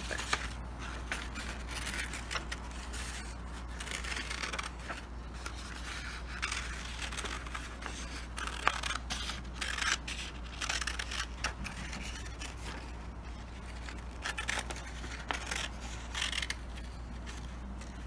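Scissors cutting through folded construction paper along a curved line, with irregular short snips and the rustle of the paper being turned between cuts.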